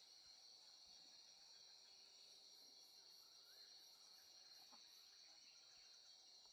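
Faint forest insect chorus: a steady high-pitched drone, with a run of softer, higher chirps at about three a second in the middle and a faint rapid ticking near the end.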